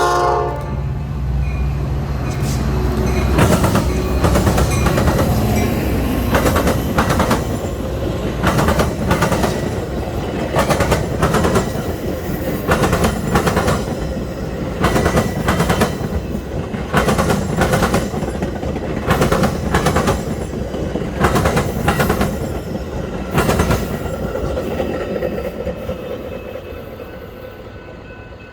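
A train passing close by: the locomotive's low rumble, then a long run of cars whose wheels click over rail joints in regular pairs, fading near the end. A horn cuts off right at the start.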